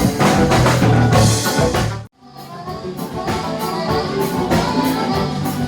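Live gaúcho dance-band music, an instrumental stretch with guitar and drum kit on a steady beat. About two seconds in it cuts off abruptly for a moment, then the music starts up again, a little quieter.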